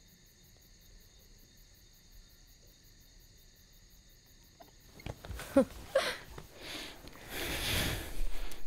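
Crickets chirring steadily in a quiet room. About five seconds in come rustling of clothes and bedding and a couple of short breathy vocal sounds, with a louder rustle near the end as a couple embraces.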